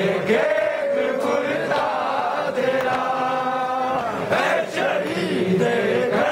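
Men chanting a Shia nauha, a Muharram lament, together in a slow melody with long held notes. A few sharp slaps cut through it, typical of hands striking chests in matam.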